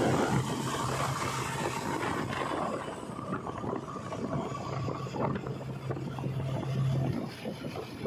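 JCB 3DX backhoe loader's diesel engine running as the machine drives past, a steady low drone that drops away about two seconds in, comes back and ends about seven seconds in.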